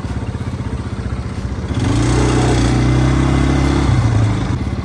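ATV engine running while being ridden, picking up and getting louder about two seconds in as it speeds up.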